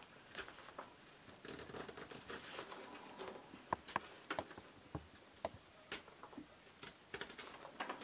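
Whittling knife paring thin slivers from a wet wooden blank: faint, irregular scraping cuts and sharp clicks, most continuous about two seconds in.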